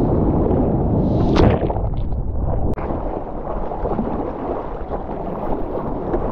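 Ocean water rushing and splashing around a surfboard at the surface as a surfer moves through whitewater. There is a loud splash about a second and a half in, then quieter sloshing and lapping, with the water and wind buffeting the microphone.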